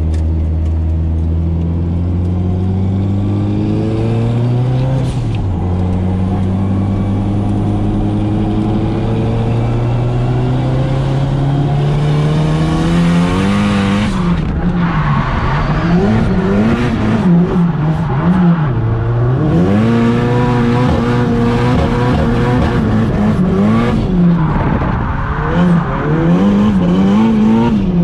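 Turbocharged SR20DET 2.0-litre four-cylinder engine heard from inside the cabin. It pulls steadily up through the revs, dropping once at a shift about five seconds in. From about halfway the revs swing up and down over and over as the throttle is worked through a drift.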